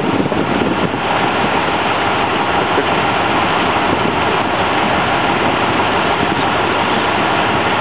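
Steady rush of water and engine noise from a Watson-class motor lifeboat running close alongside, its bow wave breaking white. Wind buffets the microphone for about the first second, then the sound settles into an even rush.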